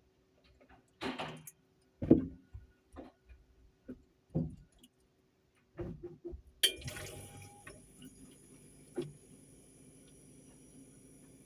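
A handful of irregular knocks and clicks from objects being handled. About six and a half seconds in comes a sharp click, and a steady hum with a faint high whine follows.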